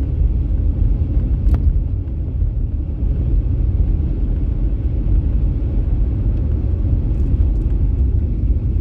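Steady low rumble of a car driving along a road, heard from inside the cabin: engine and road noise. There is one short click about one and a half seconds in.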